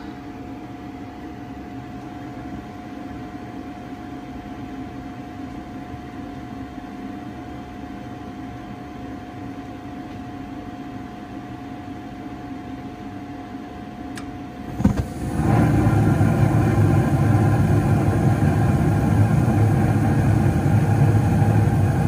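Gas furnace in its ignition sequence: the draft inducer motor hums steadily with a thin whine while the hot-surface igniter heats. About fifteen seconds in there is a click, then the gas valve opens and the burners light with a sudden jump in level, burning with a loud, steady rush to the end.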